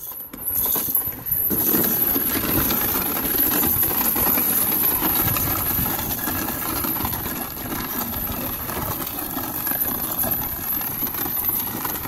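Plastic laundry basket loaded with garbage bags dragged over concrete by a dog pulling it in harness: a continuous rattling, grinding scrape that starts about a second and a half in.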